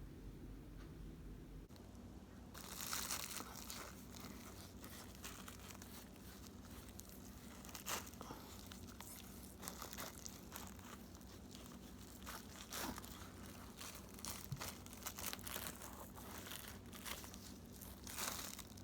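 Crinkling and rustling of something being handled, with many sharp crackles, starting about two and a half seconds in and stopping just before the end.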